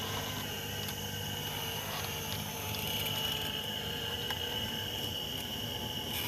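Small electric motors of radio-controlled construction models whirring steadily with a high whine, with a few faint clicks.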